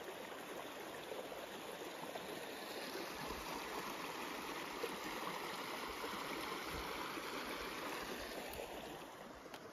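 Shallow creek running and splashing over rocks through a small riffle, a steady rush of water that grows louder a few seconds in and eases near the end.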